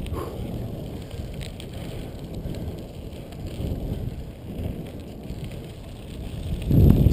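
Bicycle rolling fast down a gravel trail: tyres on loose stones with wind rumbling on the camera microphone, swelling louder near the end.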